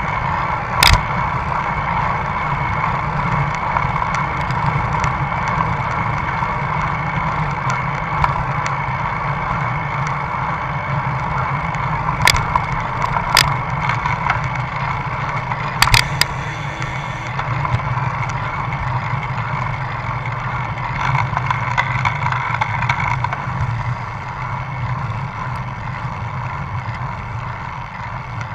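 Riding noise picked up by a camera mounted on a road bicycle: a steady rush of tyres on asphalt and air over the microphone. A few sharp knocks come about a second in and several more between about 12 and 16 seconds in.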